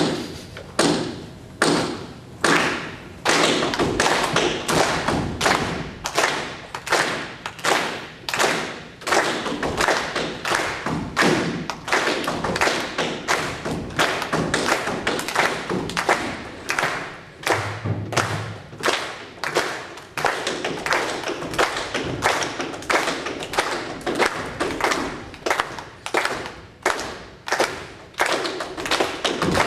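Tap dancing: tap shoes striking a wooden floor in an uneven, rhythmic run of sharp taps and heavier stamps, about two to four strikes a second.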